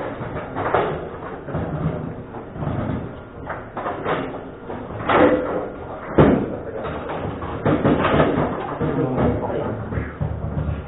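Table-football play: the ball and players' figures knock and slam against the table, irregular sharp strikes, the loudest about six seconds in.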